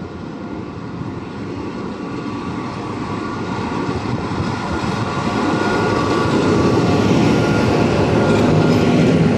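Locomotive-hauled regional passenger train, led by Bo-Bo locomotive 425576-2, moving along the station track. It grows steadily louder and is loudest near the end.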